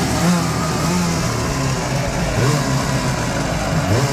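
Two-stroke engine of a vintage stand-up jet ski running out of the water on a stand, its speed wavering unevenly up and down. It is the engine's first run after sitting about 25 years dry of oil.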